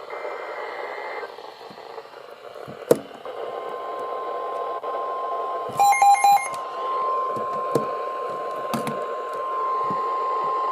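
Weather radio receiver hissing with static, with a few sharp crackles. About three seconds in, the steady single-pitch NOAA Weather Radio warning alarm tone starts and holds, marking an incoming warning. Around six seconds in, a brief warbling burst of data tones cuts in over it.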